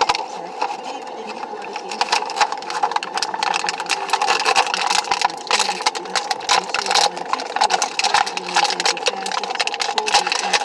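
Packaging being handled and opened: dense, irregular crinkling and clicking over a steady hum, busier from about two seconds in.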